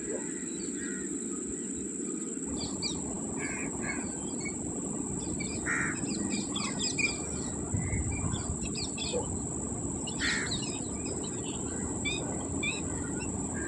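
Birds chirping and calling in short scattered notes, a few louder calls standing out, over a steady low rumble and a steady high-pitched whine.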